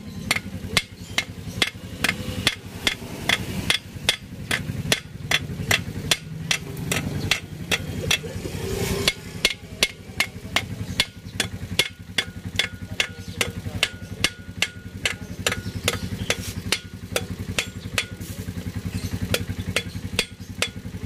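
Hammer tapping the rim of a cylinder bore on an Isuzu 4BC2 engine block: a long, even run of sharp metal-on-metal knocks, about three a second.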